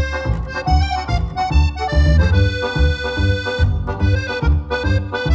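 Background polka music led by an accordion, with held melody notes over a steady, evenly repeating bass beat.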